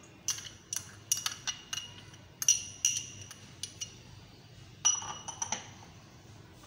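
A metal spoon clinking and scraping against a small glass bowl and a stainless steel mixing bowl as raw papaya paste is knocked out onto pieces of beef: about fifteen sharp, ringing clinks in irregular clusters, the loudest about two and a half seconds in and again near five seconds.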